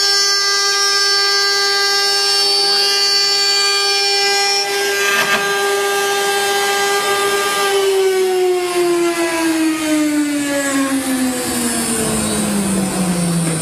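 CNC wood-carving router spindle running with a steady high whine, then a little over halfway through its pitch falls smoothly and steadily as the spindle winds down.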